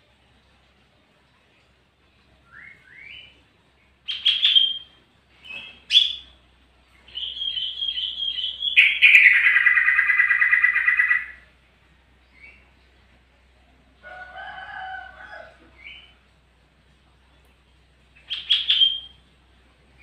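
Sooty-headed bulbul (kutilang) singing in separate phrases of short rising notes. About seven seconds in, a quick run of notes leads into a loud, harsh trill lasting a couple of seconds. A lower, fuller call follows a few seconds later.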